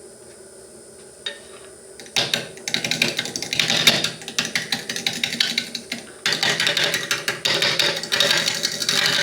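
Wood lathe turning a heavy walnut djembe blank runs quietly at first; about two seconds in, a big turning gouge bites into the spinning wood with a fast, rough chattering rattle, in two light passes with a short break in between.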